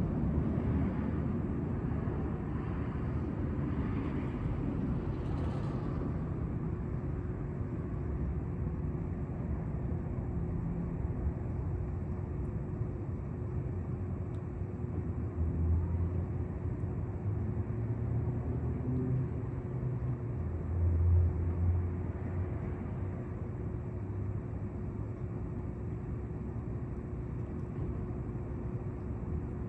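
Steady low rumble of city traffic with a constant hum running through it; the rumble swells louder twice, about halfway through and again a few seconds later.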